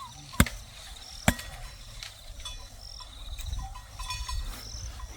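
Faint insect chirping in a rapid pulsed trill, broken by two sharp knocks about half a second and a second and a half in, with a low rumble underneath.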